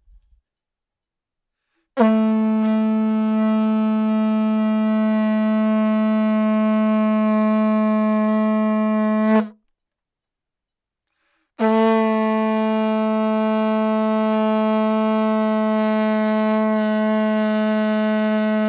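Red plastic vuvuzela blown in two long, steady blasts of about seven seconds each on its single note near B-flat below middle C, with a pause of about two seconds between them.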